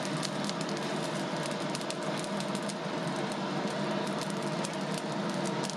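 Coal forge fire burning hard under a forced-air blast: a steady rushing noise with a constant hum, laced with many sharp crackles and pops as sparks fly from the coals.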